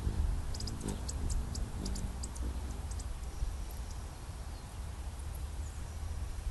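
Hummingbird giving a quick series of short, high chips, about ten in the first three seconds, over a steady low rumble.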